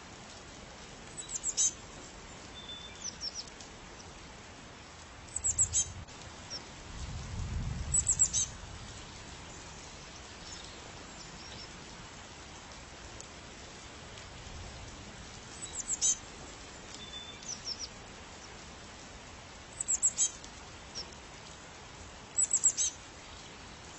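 A bird chirping in short bursts of several quick, very high notes, repeated every few seconds over a steady background hiss. There is a brief low rumble about a third of the way in.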